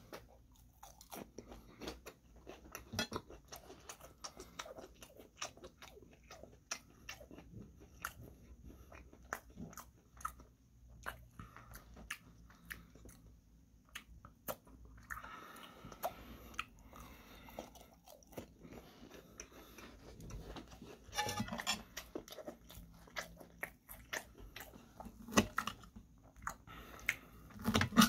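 Close-up chewing and crunching of crispy breaded fried chicken (chicken katsu): many small crunches and mouth clicks, with a couple of louder clicks near the end.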